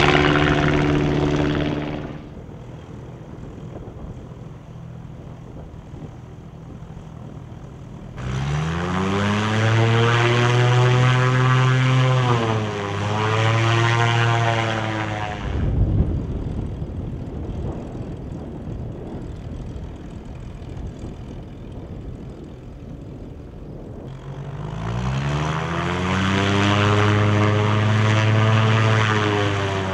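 Lake amphibian's pusher-propeller engine run up to high power, rising in pitch, to drive the plane out of the water and up a ramp. It does this twice, with a quieter stretch between, and the first run-up dips briefly before ending in a thump.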